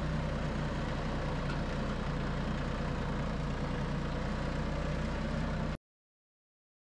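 Tractor engine running steadily, heard from on the tractor as it drives along. The sound cuts off suddenly near the end.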